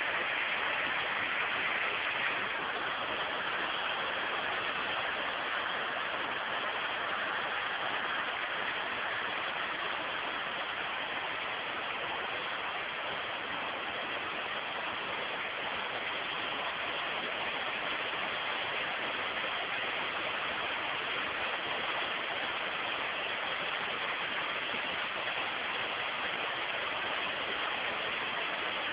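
Waterfall: water falling and splashing in a steady rush, a little louder for the first two seconds or so.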